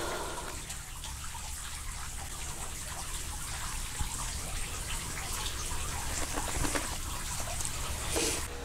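Running water, a steady rushing hiss, with a short louder noise near the end.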